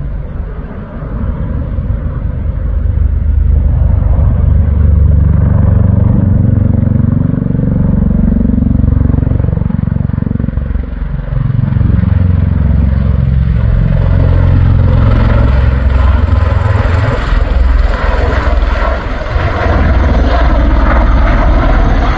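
A V-22 Osprey tiltrotor flying low overhead with its rotors tilted up, its deep rotor and engine noise loud throughout. The sound builds over the first few seconds and its pitch bends about halfway through as it passes. It grows harsher near the end.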